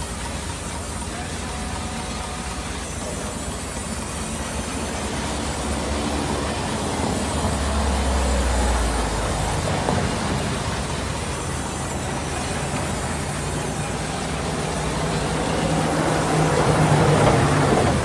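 Band saw mill running and cutting through a log as it is fed past the vertical blade: a steady machine noise that swells twice, loudest near the end.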